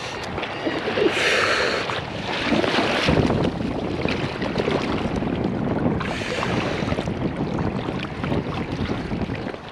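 Shallow surf washing and swirling around rubber boots in ankle-deep water, in several surges, with wind buffeting the microphone.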